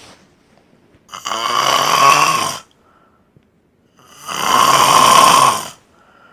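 A man snoring loudly in deep sleep: two long snores, each about a second and a half, about three seconds apart, with a faint breath after each.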